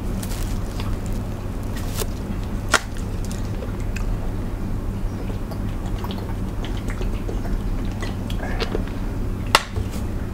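Mukbang eating sounds over a steady low hum: sauce-covered hands handling crab and other seafood, with a few sharp clicks and a drink from a plastic water bottle about six seconds in.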